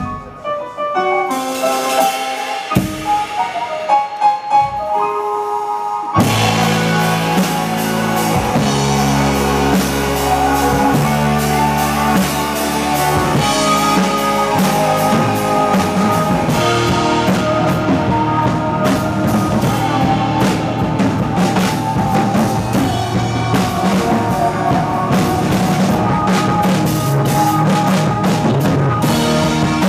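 Live rock band with guitar, keyboards and drum kit. It opens with a few sparse melodic notes; about six seconds in, bass and drums come in together and the full band plays on with a steady beat.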